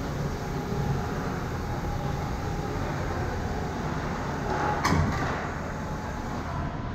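Ice hockey rink ambience: a steady low rumble and hiss, with one sharp, close knock about five seconds in.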